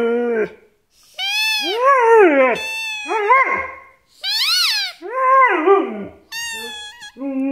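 Siberian husky "talking": a series of rising-and-falling whining howls answering a squeaky toy, which squeaks about three times in between. A longer, steady howl starts near the end.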